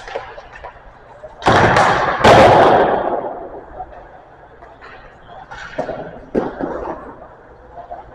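Hockey sounds echoing in an ice rink: two loud bangs about a second and a half in, close together, each ringing on in the rink. Two lighter, sharper clacks follow near the end.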